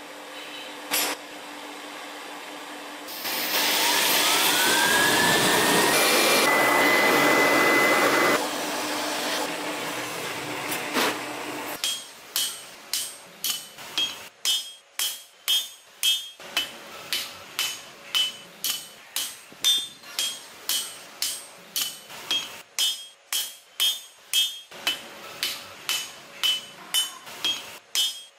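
A small electric motor spins up with a rising whine, runs steadily for a few seconds, then dies down. From about twelve seconds in, a hand hammer strikes a red-hot steel bearing race on an anvil, about one and a half ringing blows a second, as the steel is forged out.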